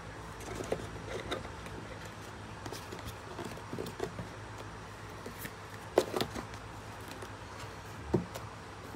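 Handling noise from unboxing: light taps, clicks and rustles of a coiled charging cable and white cardboard box packaging being handled, with a sharper knock about six seconds in and another near the end. A steady low hum runs underneath.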